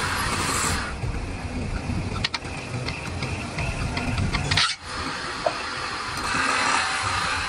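Motor-driven wood lathe running with a steady low rumble while sandpaper is held against a spinning wooden plate, giving a hiss. The hiss falls away after about a second, a few light clicks follow, the sound drops out briefly just before the five-second mark, and the hiss returns near the end.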